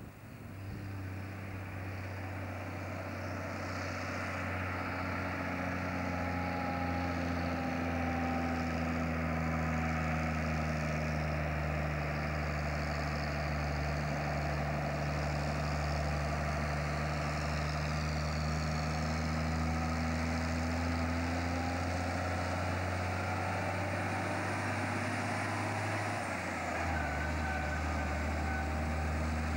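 Engine of a cab-over logging truck with a loader crane approaching round a bend and passing close by, running steadily and growing louder over the first several seconds. Its note drops lower near the end as it goes by.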